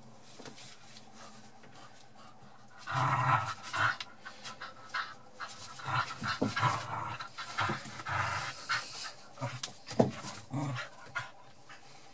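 Kooikerhondje puppy panting in quick, uneven bursts while it tugs at a rope toy, starting about three seconds in. One sharp knock comes near the end.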